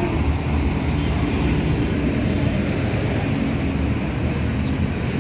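Busy city road traffic: a steady low rumble of engines and tyres from passing buses, cars and motorcycles.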